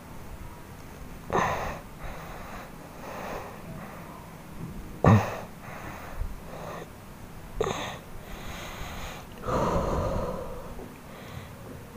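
Heavy breaths forced out of a man lying face down as a masseur stands and steps on his back in a trampling massage: about four of them, the loudest about five seconds in and a longer, drawn-out one near the end.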